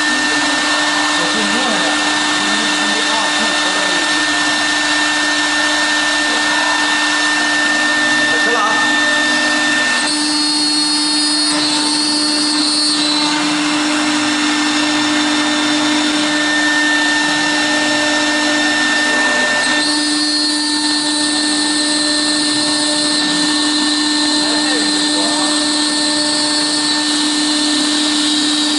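CNC router spindle running with a steady high whine while its cutter mills a clear acrylic sheet, over a constant hiss of cutting. The tone and the bright cutting noise shift about ten seconds in and again near twenty seconds as the cut changes.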